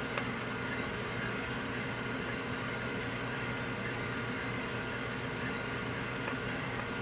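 Buckeye BC-2 drum coffee roaster running with its drum and airflow fan humming steadily, and a few faint sharp pops near the start and near the end: the first cracks of the Colombian beans as first crack begins.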